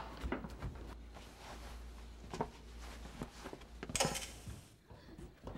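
Faint scattered clicks and knocks over a low steady hum, with a short louder knock about four seconds in.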